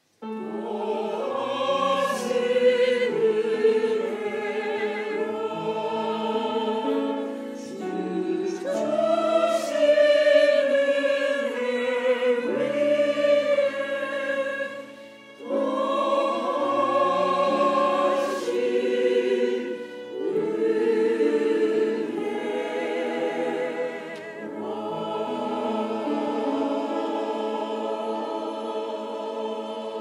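Mixed church choir singing a hymn anthem in harmony, with piano and violin accompaniment, coming in together right at the start after a moment of silence. The music pauses briefly twice near the middle.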